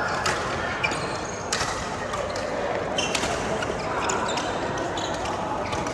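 Badminton rally: several sharp hits of rackets on a shuttlecock at irregular intervals, with short squeaks of court shoes and a steady hum of background noise.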